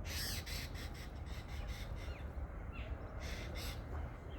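Birds calling in short, repeated bursts in clusters, over a steady low rumble.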